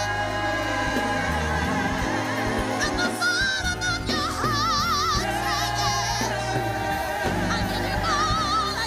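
Gospel music: a singing voice with wide vibrato over sustained held chords.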